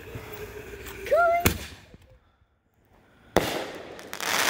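Consumer aerial firework going off: a sharp bang about a second and a half in, then after a short quiet a sudden louder report that runs into dense crackling as the crackling stars burst.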